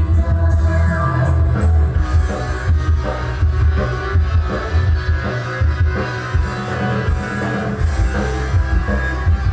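Loud music with heavy, pulsing bass played through the Surya Audio sound system during a sound check.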